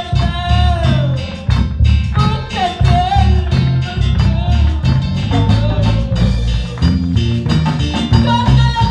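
Live Latin-style worship music: a woman singing lead over electric guitar, bass and drums, with a steady beat.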